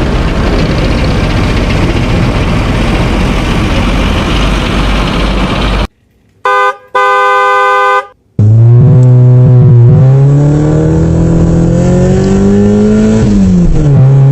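Electronic sound effects played by toy vehicles: a rumbling engine sound for the first six seconds, then after a brief gap a short beep and a horn toot, then a revving engine sound whose pitch rises and falls.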